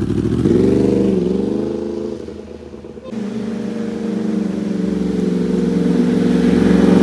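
Yamaha YZF-R1 inline-four engine through an SC Project exhaust, revving up with a quick blip and then fading. About three seconds in the sound changes abruptly, and the engine runs at a steady pitch, growing gradually louder.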